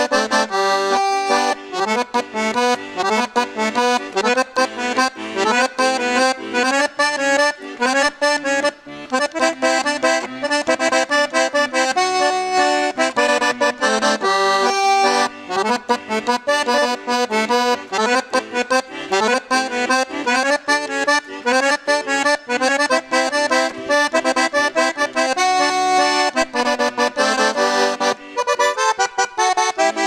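Eight-bass diatonic button accordion (gaita de oito baixos) played solo: a fast tune of quick runs of notes over bass and chord buttons, without a break.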